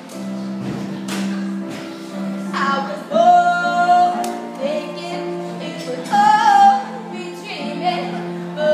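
A woman singing, holding long notes, over steady sustained instrumental accompaniment.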